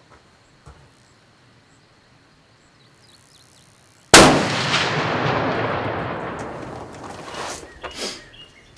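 A custom-built high-powered muzzleloading rifle fired once about four seconds in: a sharp, very loud shot followed by a long rolling echo that dies away over about three seconds.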